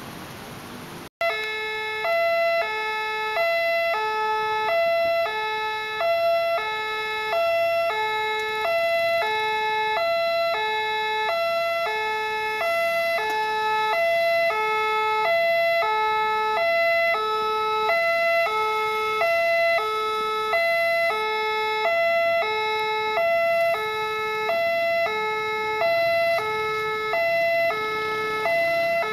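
Electronic railway level-crossing alarm sounding a two-tone chime, the two pitches alternating evenly about once a second: the warning that a train is approaching and the barriers are down. It starts about a second in, after a short gap.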